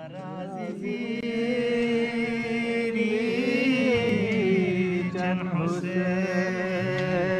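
A single voice chanting in long held notes that glide slowly up and down in pitch.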